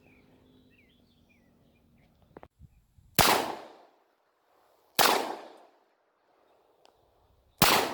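Three single shots from a .45-caliber 1911 pistol fitted with a compensator, about two seconds apart, each followed by a short echo.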